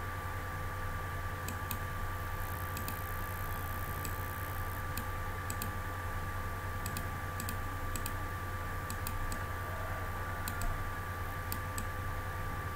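Light scattered clicks of a computer mouse, several in quick pairs, over a steady low electrical hum and hiss.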